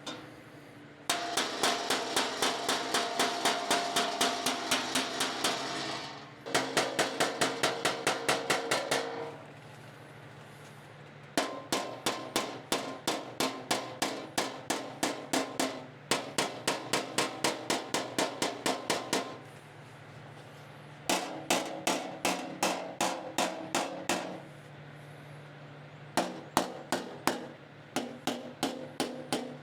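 Body hammer striking a car fender panel against a dolly, rapid ringing metallic blows about four a second. They come in runs of several seconds with short pauses between. This is metal being worked to raise out a dent and groove.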